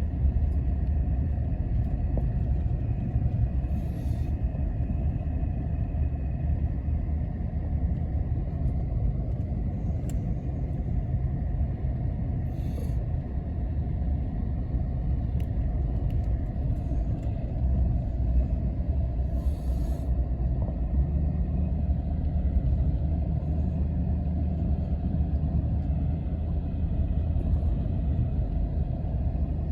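Quad (ATV) running steadily during a ride, a continuous low rumble, with a few brief hissy bursts on top.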